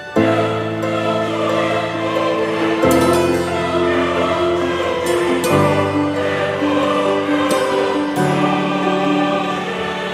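Background music with sustained, choir-like chords that change about every three seconds, starting abruptly at the beginning.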